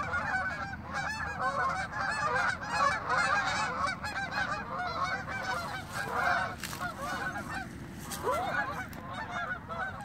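A large flock of geese honking in flight overhead, many calls overlapping continuously, thinning a little near the end.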